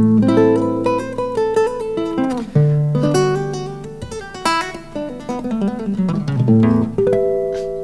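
Acoustic guitar playing an instrumental passage at the end of a song, plucked melody notes over held bass notes that are left to ring.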